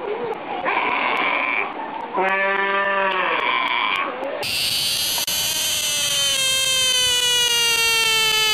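Sea lion pup calling: a short call, then a longer bleating call that rises and falls. About four seconds in, a long steady wail takes over and falls slowly in pitch.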